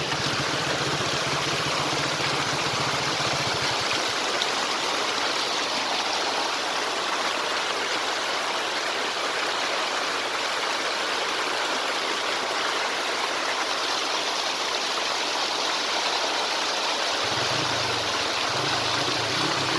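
Spring water flowing and splashing, a steady rushing sound.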